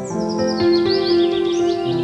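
Calm instrumental background music of held chords, with quick high bird chirps and twitters over it from about half a second in.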